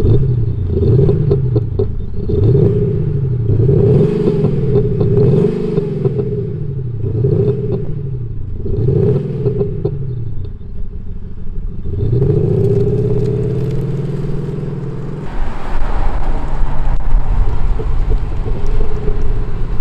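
Mercedes-Benz S350d diesel with an Active Sound Unit, an exhaust sound generator playing a deep, AMG-style exhaust note with burbling and simulated misfire pops on the overrun. The engine is revved about six times in quick succession, each note rising and falling, then given a longer rev. Near the end the car pulls away and drives past.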